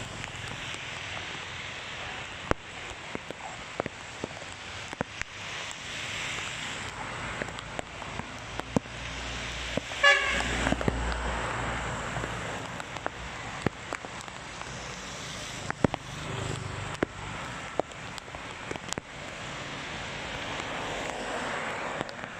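Steady hiss of heavy rain and runoff on a wet road, with cars passing and scattered sharp ticks. About ten seconds in, a car horn toots briefly, the loudest sound.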